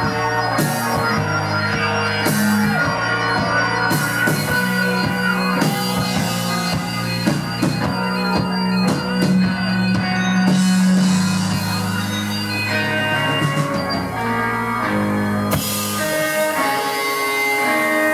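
Live band playing: trumpet and saxophone over electric keyboard, bass, guitar and a drum kit, with held horn notes over a steady bass line and frequent drum hits.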